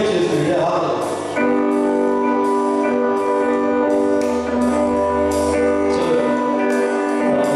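Amplified live rock band playing loud: electric guitar and sustained held chords over a steady, even beat, the chords settling in about a second and a half in.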